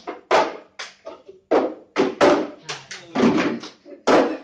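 Girls' voices speaking in short phrases separated by brief pauses, with a low steady hum underneath.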